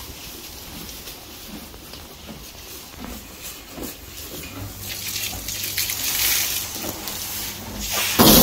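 A mule nosing and chewing in straw bedding, a faint irregular crackling rustle. About halfway through, a louder steady rushing hiss with a low hum beneath it joins in and grows.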